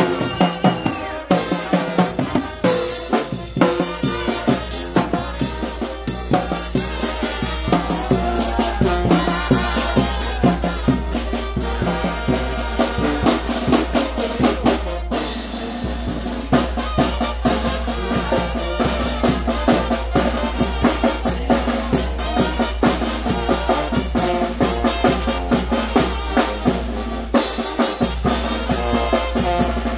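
Mexican brass band (banda) playing. Trumpets, trombones, saxophone and sousaphone sound over a bass drum with cymbal and a pair of tarola snare drums keeping a steady, busy beat.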